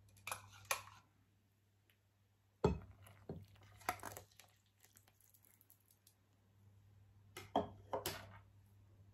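Scattered kitchen handling noises: a knife scraping and tapping yeast starter out of a plastic blender cup into a glass bowl of flour, with one sharp knock about two and a half seconds in and a few more clicks near the end.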